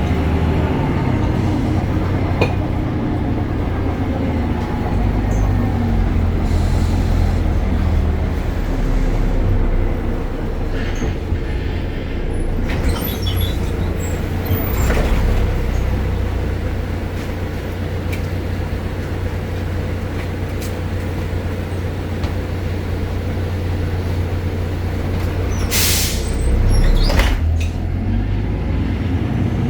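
BredaMenarini Avancity Plus city bus running, its Deutz Euro 5 diesel engine and ZF gearbox giving a steady low drone. There are a few scattered clicks and a short hiss about 26 seconds in.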